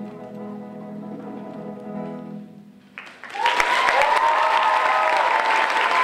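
An electric guitar's final chord ringing and fading away, then about three seconds in an audience breaks into loud applause with cheering voices.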